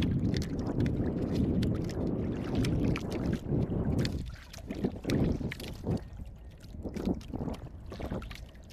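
Water and wind rushing around a small outrigger boat drifting at sea, a steady low rush that drops away about four seconds in. It leaves short clicks and rustles of hands winding fishing line onto a small plastic float.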